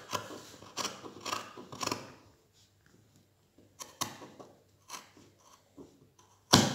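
Scissors snipping through fabric laid on a table: a quick run of cuts in the first two seconds, then a few single snips, and a sharp, louder click near the end.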